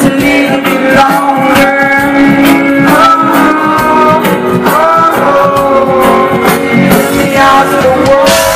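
Live reggae band music with a steady drum beat, guitar and held melody lines.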